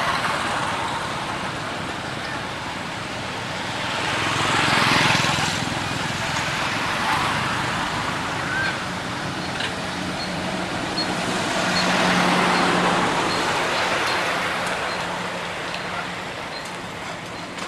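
Road traffic: passing vehicles, their rushing noise swelling and fading about four seconds in and again around twelve seconds, with a steady engine hum under the second pass.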